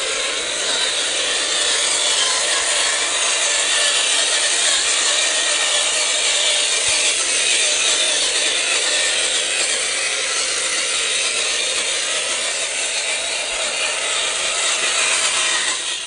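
Electric motor and gearbox of a 1/12-scale RC Kubelwagen crawler running with a steady grinding rasp as the model climbs over loose rock.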